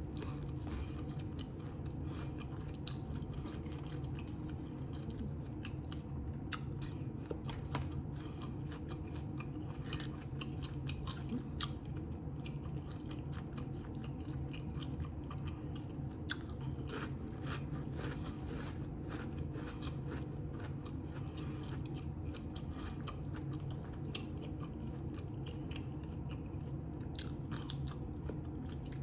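Close-up mouth sounds of a person chewing and biting food, with frequent crisp crunches, over a steady low hum.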